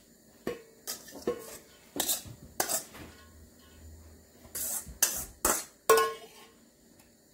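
Metal serving spoon clinking and knocking against stainless steel pots while spooning boiled basmati rice from one pot into another, about nine separate clinks, a few ringing briefly.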